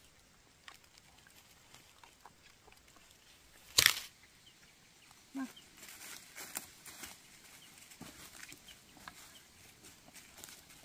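Footsteps crunching through dry leaves and twigs on a forest floor, a patter of small crackles from about six seconds in. A single loud sharp click comes near four seconds in, and a brief low call a moment after it.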